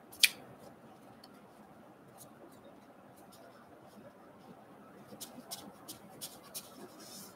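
Trading cards handled in the hands: one sharp tap just after the start, then near quiet, then a run of light card clicks and flicks from about five seconds in as the cards are thumbed through.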